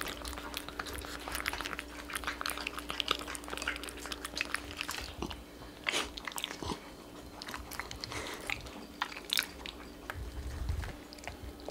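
Pets eating dry kibble: a steady run of crisp crunching and chewing, with a few sharper clicks about six and nine seconds in.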